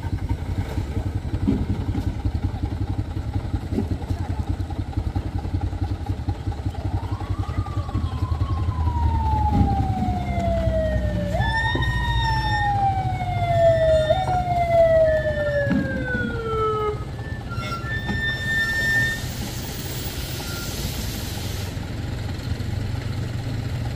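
Vehicle engines running with a steady low rumble. Partway through, a whine falls slowly in pitch and jumps back up three times. A hiss follows near the end.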